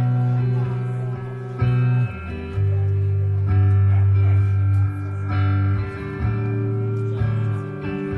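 Solo electric guitar played through a stage amplifier: held, ringing chords with a strong low end, changing every second or two.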